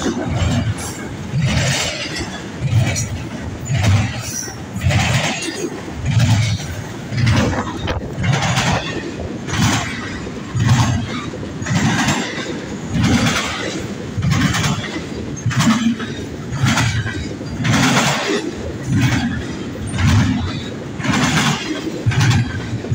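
Freight train cars rolling past, their wheels clacking over rail joints in a steady rhythm, a clatter about once a second over a low rumble.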